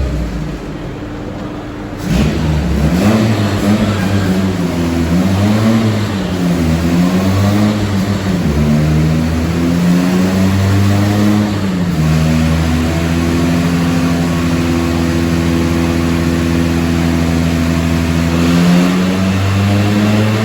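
Freshly rebuilt Nissan Micra stock car engine running after its first start, not yet tuned. For the first several seconds the revs rise and fall as the throttle is worked, then the engine holds a steady speed.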